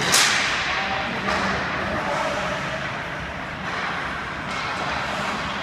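One sharp crack of a hockey puck being struck just after the start, then steady rink noise of skates scraping the ice.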